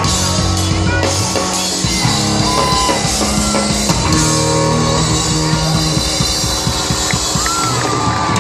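Live rock band playing loudly through a festival PA, with guitar and drums, heard from within the crowd.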